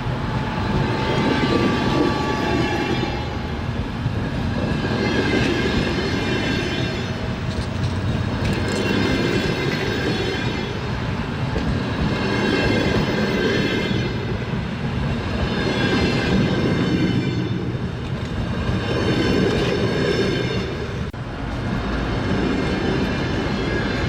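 Train wheels running on the rails with a continuous clatter, and a high metallic ringing from the wheels that swells and fades every three to four seconds.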